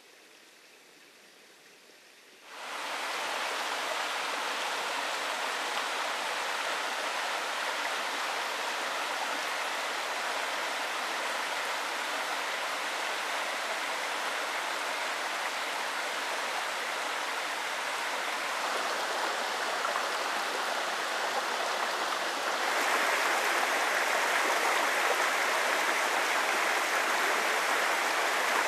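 Small rocky mountain trout stream flowing over stones: a steady rush of running water. It comes up sharply about two and a half seconds in and grows a little louder near the end.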